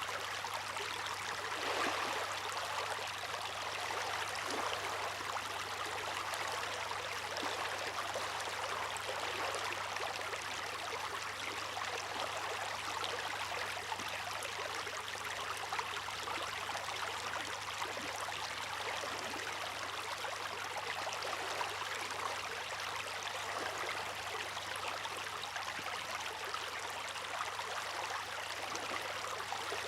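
Water rushing and splashing steadily, with fine crackle throughout and a slightly stronger swell about two seconds in.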